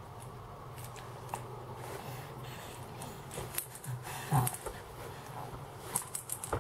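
A baby's small plastic rattle shaken in irregular bursts of rattling clicks, the busiest in the second half. About four seconds in, the infant gives a short grunt, the loudest sound.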